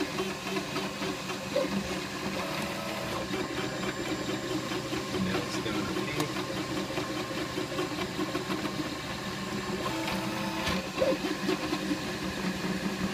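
Flashforge Dreamer 3D printer running: its stepper motors whir in short stretches of different pitch as the print head moves back and forth, laying PLA near the end of a print. A brief knock comes about ten to eleven seconds in.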